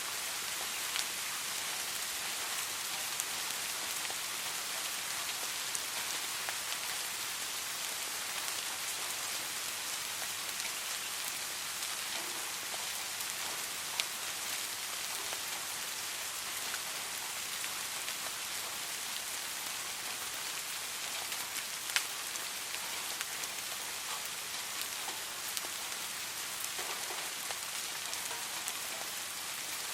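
Soft rain falling steadily: an even hiss with a few louder single drops ticking now and then.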